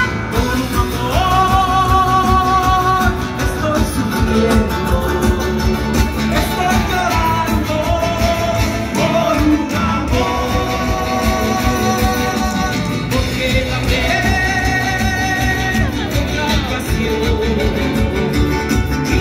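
Live Andean folk band music: a singer holds long notes over guitar accompaniment.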